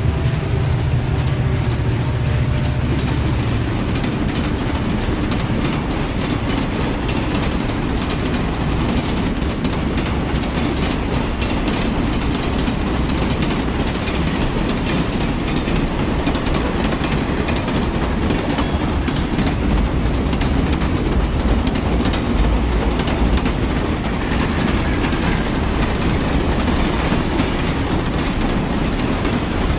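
Train running on rails: a steady low rumble with a constant rattle of wheels clicking over the track.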